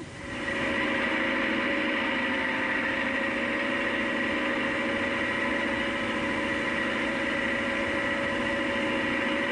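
Leyland tractor's diesel engine running steadily at an even note, cutting in sharply as the music stops.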